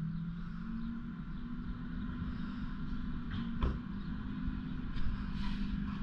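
Rear-loader garbage truck's diesel engine running steadily at a distance, with a single sharp knock about three and a half seconds in and a short hiss near the end.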